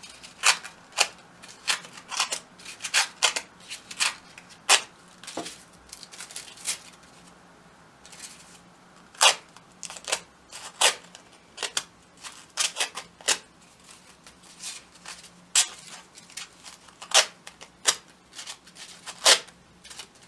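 Scissors working pink crepe-paper petals, curling the petal tips over the blade: a run of sharp, irregular snips and clicks, with a short lull about halfway through.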